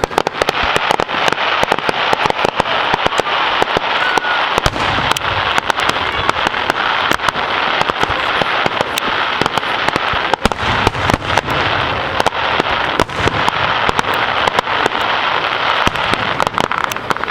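Fireworks display: a dense, continuous crackle of many rapid small pops, with deeper low rumbles about five and eleven seconds in.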